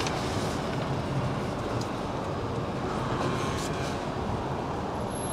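An HGV's diesel engine running steadily at low speed, heard from inside the cab as a constant hum with road and cab noise.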